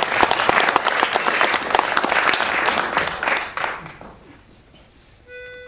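Audience applauding, the clapping dying away about four seconds in. Near the end a single short held musical note sounds.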